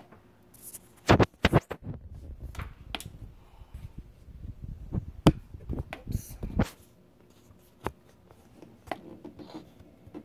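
Handling noise from a phone being moved around by hand: rubbing and scraping with a scatter of sharp knocks and clicks, loudest just after a second in and again around five to six seconds in.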